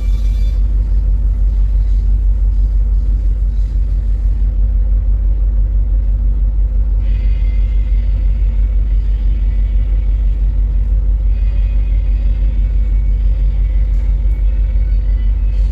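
Loud, steady low rumble with a faint steady hum over it.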